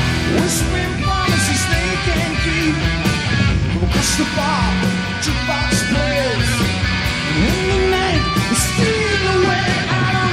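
Hard rock band playing live: electric guitar over drums and bass, with cymbal crashes.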